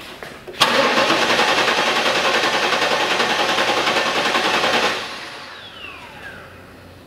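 Starter motor cranking the Pontiac Firebird Trans Am's LT1 V8 with the fuel pump disabled, so it turns over without firing. It kicks in suddenly just under a second in, cranks at an even beat for about four seconds, then cuts out and winds down with a falling whine. The evenness matches the consistent starter current draw on every cylinder, a sign of healthy, even compression.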